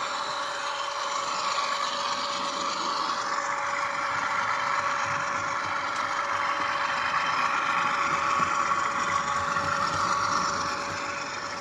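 Model diesel locomotive running on a layout: a steady diesel engine sound with a constant whine, growing a little louder and then dropping off near the end as it passes.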